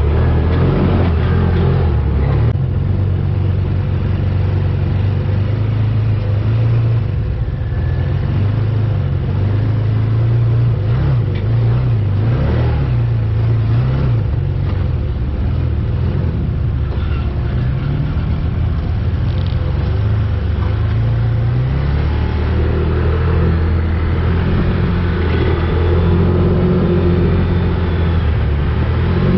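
UTV engine running as the vehicle is driven along a sandy track, a steady low drone whose pitch rises and falls with the throttle, around the middle and again near the end.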